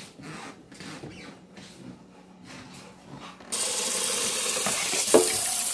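A few soft taps. Then, about three and a half seconds in, a kitchen tap is turned on and water runs steadily into a stainless steel bowl in the sink, with one brief louder sound near the end.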